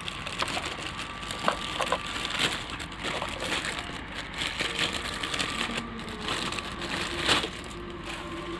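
Packaging of a mini sewing machine being opened and handled: irregular crackling and rustling, with one louder crack near the end.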